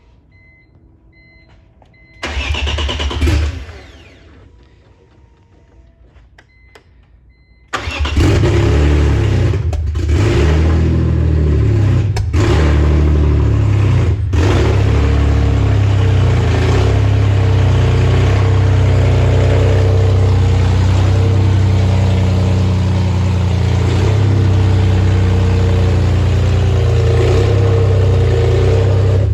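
A 2002 BMW M3's S54 inline-six engine gives a short burst on a first crank about two seconds in, then fires about eight seconds in. It then runs loud and steady with a few brief dips early on. It is loud because it has no muffler or exhaust piping fitted, almost like open headers.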